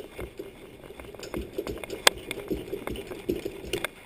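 Irregular clicking and scraping as the protective cap is twisted off the condenser fan motor by hand, with one sharp click about two seconds in.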